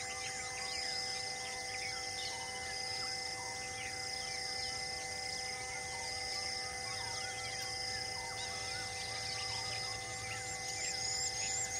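Birds and insects calling in the wild: many short, falling bird chirps over a steady insect trill, with a high pulsing insect call about every second and a half. Near the end a fast, repeating high chirp starts up, a few times a second.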